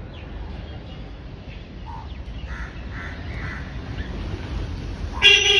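Outdoor ambience: a steady low rumble with crows cawing faintly in the middle, then a short, loud, steady-pitched honk near the end.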